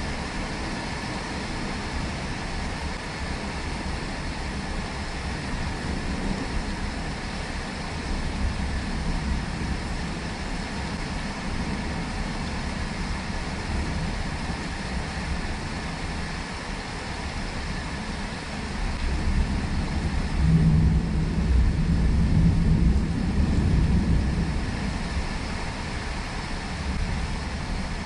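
Steady rain falling, with a deep rumble that swells about two-thirds of the way through and fades again near the end.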